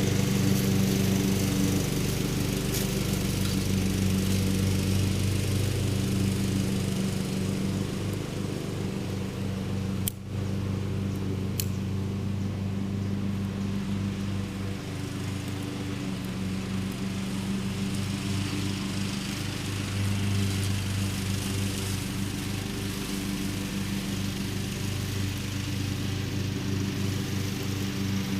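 A small engine runs steadily at an even speed throughout, with a few short sharp clicks, one about ten seconds in.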